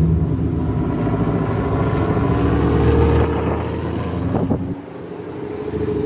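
Late-model Ford Mustang's engine and exhaust running low and steady as the car rolls slowly past close by and pulls away, fading briefly about five seconds in.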